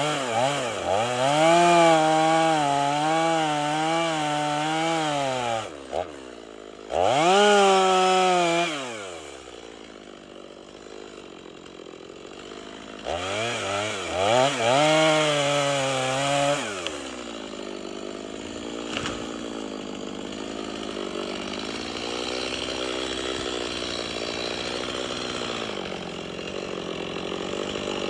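Stihl two-stroke chainsaw cutting into a standing tree trunk. It revs to full throttle three times, the longest burst first, with the pitch wavering under load, and drops back to idle between bursts. It idles steadily through the second half.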